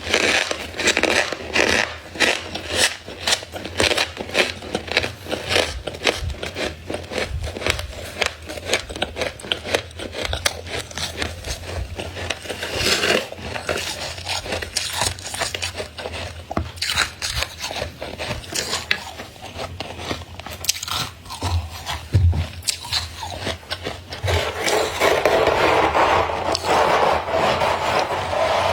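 Thick frost in a freezer being scraped and crunched in many quick, short strokes. Near the end it turns into one longer continuous scrape.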